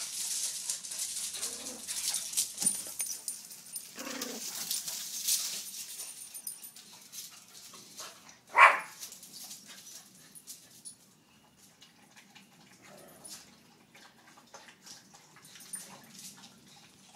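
Small terrier dogs: one gives a single short, loud bark about halfway through. Softer dog sounds and rustling come in the first few seconds, then only faint ticks.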